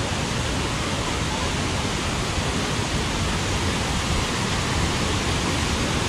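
Waterfall and rocky rapids rushing in a steady, even wash of noise, the flow very strong and high with rainy-season water.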